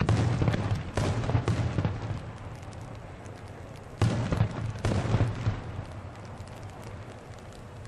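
Aerial firework shells bursting: a loud boom at the start, another about a second in, and two more around four and five seconds in, each dying away slowly with scattered crackling.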